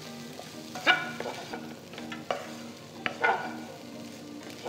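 A spoon stirring and scraping in a kadai as boiled potatoes are mixed into the spiced vegetable filling, with several sharp scrapes against the pan.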